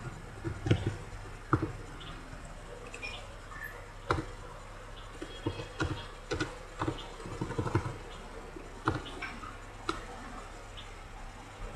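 Computer mouse buttons clicking, about fifteen short, sharp clicks at an uneven pace, over a low steady hum.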